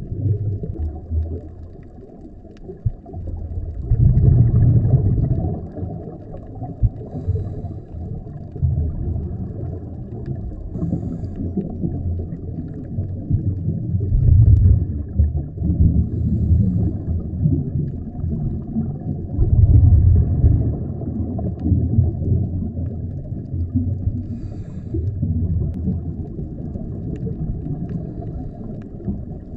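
Scuba diver's exhaled regulator bubbles heard underwater through a camera housing: a muffled low rumbling that swells into louder surges several times.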